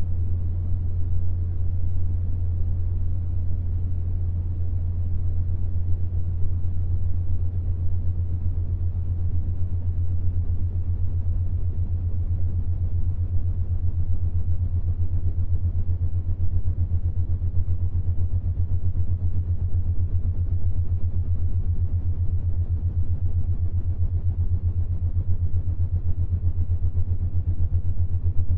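A synthesized binaural-beat drone for the 7.83 Hz Schumann resonance: one steady, deep hum, unchanging throughout.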